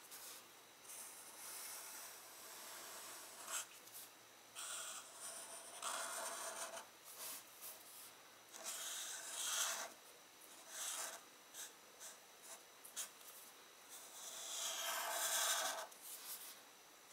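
Felt-tip permanent marker drawing on paper: the tip rubs across the sheet in irregular strokes, some short and some lasting a second or two, with the longest stroke near the end.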